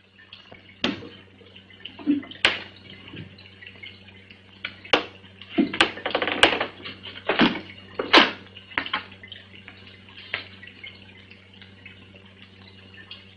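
Footsteps and knocks on wooden stairs, irregular and loudest in the middle as someone comes down into the room, over a steady low soundtrack hum.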